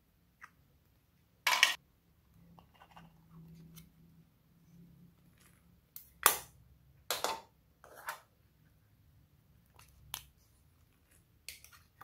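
Glossy slime being stretched and pressed by hand, giving off sharp pops and crackles at irregular moments. The loudest come about a second and a half in and again around six to seven seconds in.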